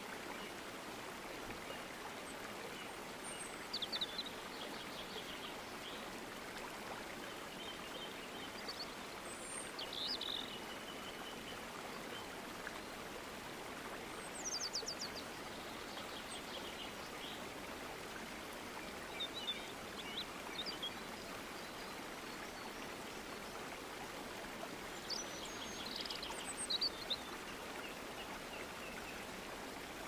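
Steady rush of a stream flowing over rocks, with songbirds calling over it every few seconds in short, high chirps and trills.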